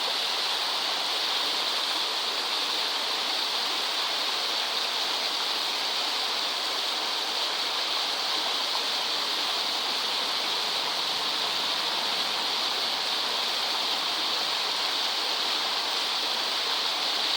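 Bigăr waterfall: water pouring and splashing without pause, a steady, unchanging rushing hiss.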